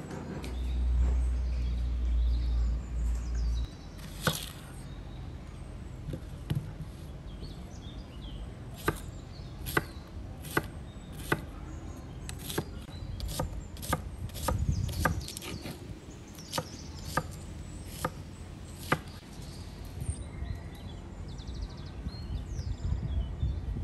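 Chef's knife slicing an onion on a thick wooden cutting board: a steady series of sharp knocks as the blade strikes the board, a little more than one a second, through the middle of the stretch. A low rumble fills the first few seconds.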